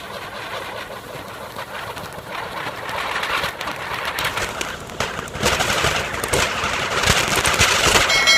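Anaar fountain firecrackers burning on a table fan's blades, spraying sparks with a steady hiss and rapid crackling that builds up and grows louder about five seconds in.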